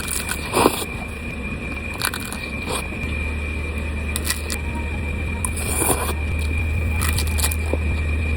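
Mukbang eating sounds: scattered short crunches, clicks and mouth noises of someone eating a spicy rice-noodle salad (yam khanom jeen) with fried mackerel, over a steady low hum.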